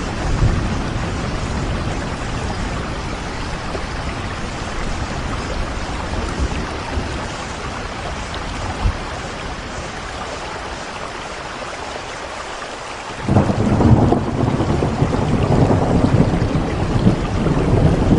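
Steady rain with a low thunder rumble underneath. About thirteen seconds in, a louder, rougher rumble abruptly sets in and continues.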